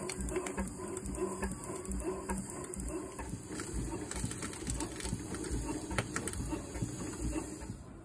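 Steam engine of an 8-inch scale Burrell Gold Medal steam tractor running steadily, a rhythmic clatter of its motion work with regular beats a few times a second. It falls quieter near the end.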